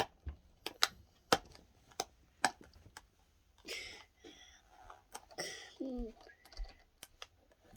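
Plastic toy packaging being opened by hand: a series of sharp clicks and snaps, with a couple of short rustles of the wrapping.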